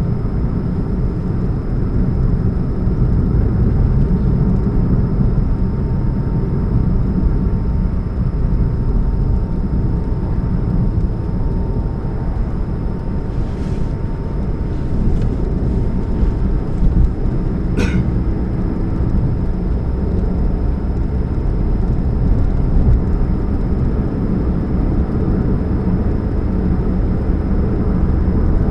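2013 Chevrolet Spark running with a steady low rumble and a faint steady hum above it, the humming that the owner puts down to an exhaust leak at the catalytic converter. One sharp click about two-thirds of the way through.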